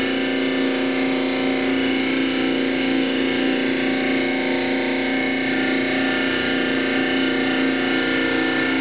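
Disc sander motor running steadily while an MDF board is held against the abrasive disc, sanding a 5-degree bevel into the edge of a wing rib mold.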